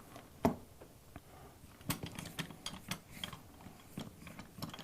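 Scattered light clicks and knocks of an A/C hose fitting being handled and seated back into the die of a hand-held hydraulic crimper, about half a dozen spread out, the strongest about half a second in.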